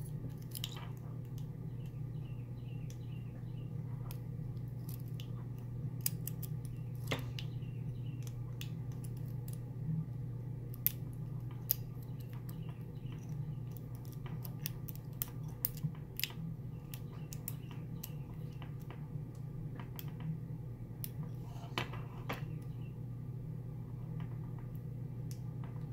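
Lock pick and tension wrench working the pins of a Master Lock lockout padlock: faint, scattered metallic clicks and scrapes over a steady low hum.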